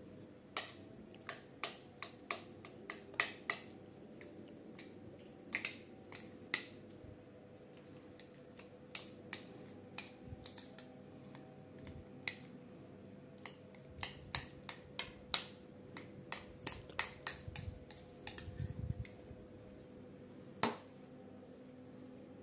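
Metal spoon stirring and mashing tofu and egg in a plastic bowl, tapping against the bowl in irregular flurries of sharp clicks with short pauses between.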